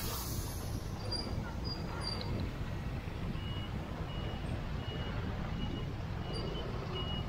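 A reversing alarm beeping at an even pace, a little under two short beeps a second, starting about halfway through. Under it runs a steady low vehicle rumble.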